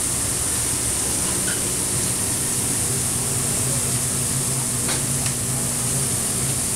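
Burger patties sizzling on a flat-top griddle: a steady hiss over a low, even hum of kitchen equipment, with a couple of light clicks about five seconds in.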